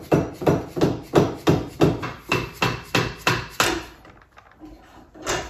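Quick, steady hammer blows, about three a second, on a part at the end of a Bridgeport milling machine's table; they stop a little after halfway, and one last blow lands near the end.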